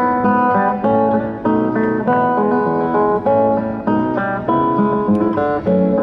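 Solo acoustic guitar playing an instrumental intro of picked chords, a new chord or note group struck about every half second.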